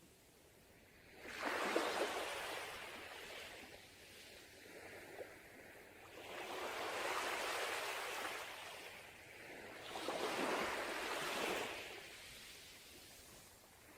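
Sea waves breaking on a beach: three surges of rushing water, about four to five seconds apart, each swelling and then fading.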